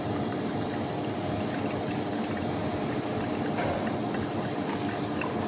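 Hot water poured in a steady stream from a kettle onto the coffee bed in a V60 dripper: the second pour, bringing the brew up to 180 ml.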